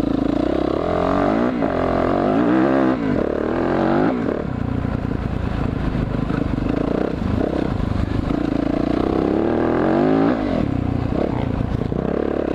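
Dirt bike engine revving as it is ridden, its pitch climbing and dropping again and again as the throttle opens and closes, with the biggest climbs in the first few seconds and again about ten seconds in.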